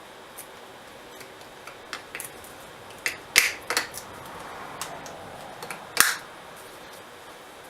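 Fuse panel cover being fitted back onto a motorcycle's accessory fuse panel: scattered light clicks and handling noise, with two sharper snaps about three and a half and six seconds in as the cover clips into place.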